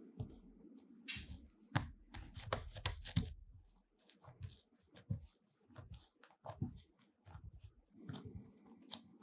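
Hands working bread dough on a floured mat: soft thuds as a dough ball is set down, then irregular taps, pats and rubbing as another piece of dough is pressed flat.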